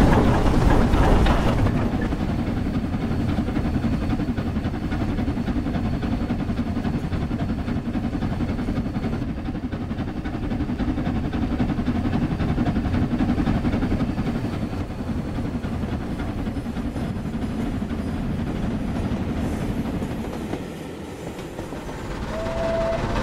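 Sound-fitted model steam locomotives running past on a model railway: steady steam-engine running sound mixed with the wheels running on the track. The sound drops briefly as the train clears, and a short high note sounds near the end.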